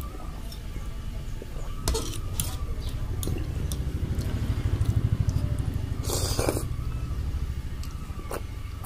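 Eating sounds of Maggi instant noodles: a fork clicking and scraping in the plate, chewing, and one short noisy slurp about six seconds in, over a low steady hum.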